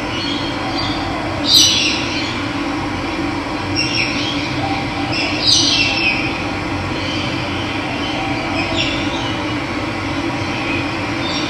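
Steady rush of running water, with a few short falling bird calls over it, the loudest about a second and a half in.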